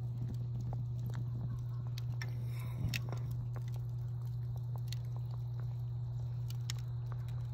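Small irregular pops and crackles from wood coals under a cast-iron pot of simmering fish stew, with a brief wet rush and a clink about three seconds in as raw eggs slide from a bowl into the stew. A steady low hum lies underneath.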